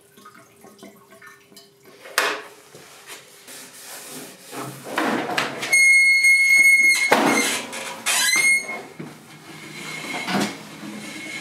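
Attempts to kick-start a 50cc Vespa PK50 XL scooter after a decade off the road: clunks and knocks from the kick-start, and a loud high squeal about six seconds in, held for about a second, with a shorter wavering squeal about two seconds later.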